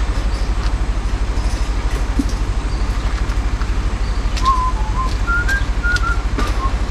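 Steady low drone of a truck's diesel engine heard inside the cab, with a person whistling a short tune of about ten quick notes in the second half.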